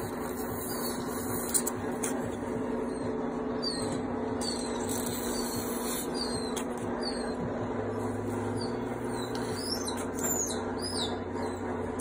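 Newborn French bulldog puppies giving many short, high squeaks, more of them near the end, over a steady hum.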